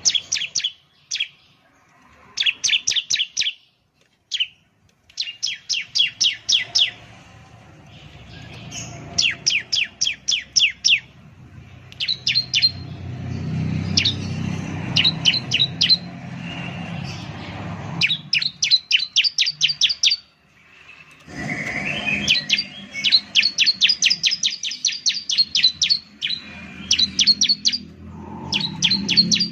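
Bar-winged prinia (ciblek) singing: repeated bursts of rapid, sharp chirps, each burst about a second long, with short pauses between.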